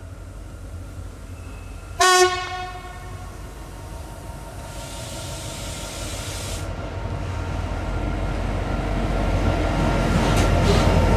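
Diesel freight locomotive approaching with a container train. It sounds one short horn blast about two seconds in, then its engine and the rumble of the wagons grow steadily louder as it draws level.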